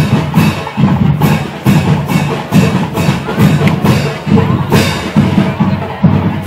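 Marching band (fanfarra) drums playing a steady march beat, a little over two strokes a second, with a heavy low drum under sharper snare-like hits.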